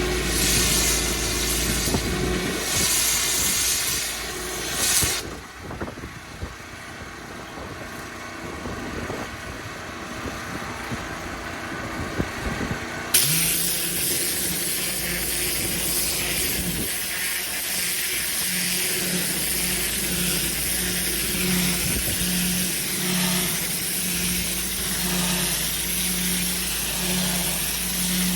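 Engine-driven pressure washer running with its high-pressure water jet hissing against paving. The spray stops about five seconds in, leaving the engine at a lower level with a few clicks, and starts again suddenly about thirteen seconds in.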